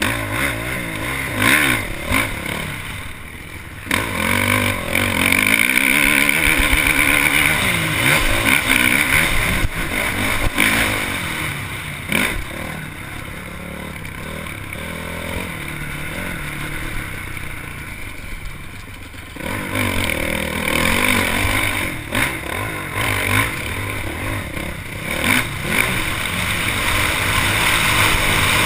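Motocross bike engine under race load, revving up and down through the gears as the rider goes on and off the throttle, with knocks and clatter from the bike over rough ground. The engine eases off for several seconds midway, then picks up hard again.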